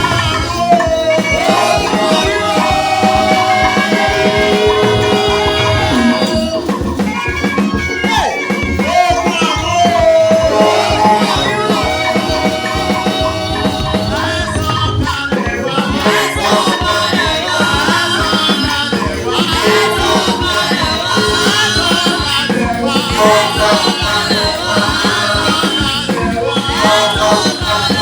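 Lively church praise music with a steady, fast drum beat and long held melody notes.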